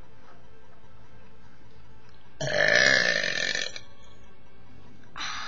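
A man's big burp lasting about a second and a half, starting about two and a half seconds in, its pitch wavering. A second, fainter sound begins near the end.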